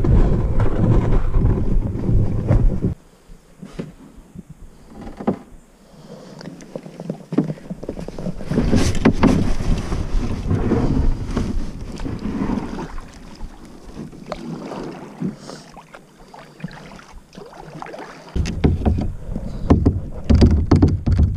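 Wind buffeting an action camera's microphone, then a quieter stretch of a plastic kayak being paddled: paddle strokes in the water and scattered knocks on the hull. The low wind rumble returns near the end.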